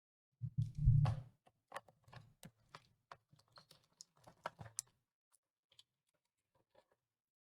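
A low thump about a second in, then a quick run of small clicks and taps that dies out around five seconds in: hands and a screwdriver working the screws and plastic casing of an Apple 800K external floppy drive.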